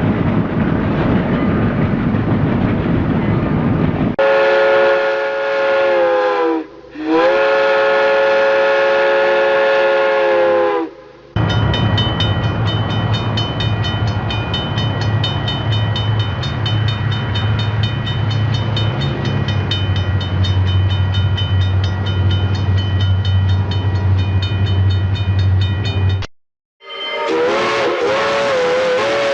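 Steam locomotive sound effects. The engine is heard running, then its chime steam whistle gives two long blasts with a short break between them. A long stretch of steady low rumble with a fast, even beat follows. It cuts off suddenly, and near the end the whistle blows again with a wavering pitch.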